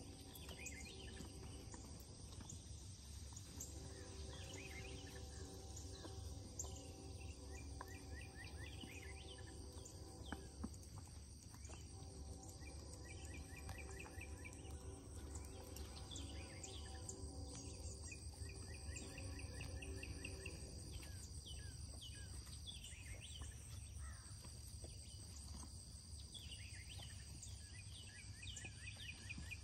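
Faint outdoor summer ambience: a continuous high insect chorus with scattered bird chirps over it and a steady low hum underneath.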